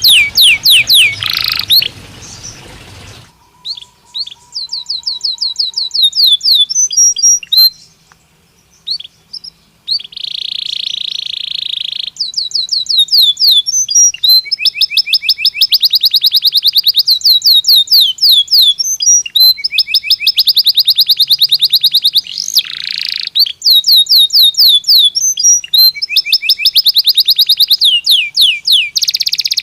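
Belgian canary singing: fast trills of repeated high sweeping notes and buzzing rolls, broken by short pauses.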